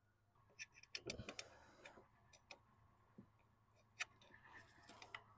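Faint, scattered metallic clicks and taps as a steel clevis pin is worked into the brake pedal and booster pushrod fork, with a soft knock about a second in and a sharper click about four seconds in.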